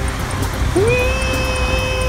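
A man's long, held, high-pitched "wheee" cry that starts under a second in, over a low rumble of scooter wheels rolling on pavement.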